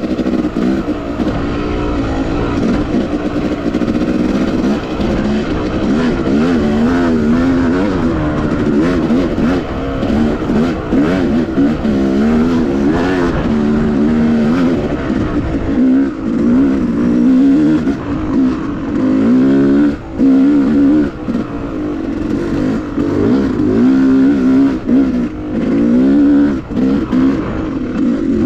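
Yamaha YZ250X two-stroke single-cylinder dirt bike engine revving up and down over and over as the throttle is worked, with brief drops in level.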